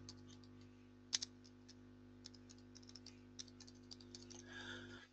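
Faint typing on a computer keyboard: a scatter of light keystroke clicks, one sharper about a second in, over a steady low electrical hum.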